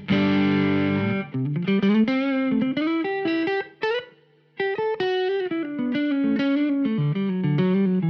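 Fano Omnis MG6 Mustang-style electric guitar played through a Fender amp and an Engl amp: a sustained chord, then a lead line of single notes, with a short break about four seconds in.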